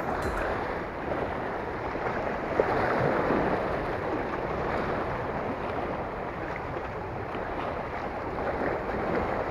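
Small sea waves washing and splashing against the boulders of a rocky shore, a steady rushing sound.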